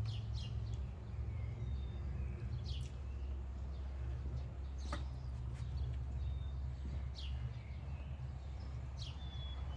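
Small birds chirping in quick, falling notes, with a few short whistled calls, over a steady low rumble. A single sharp click sounds about halfway through.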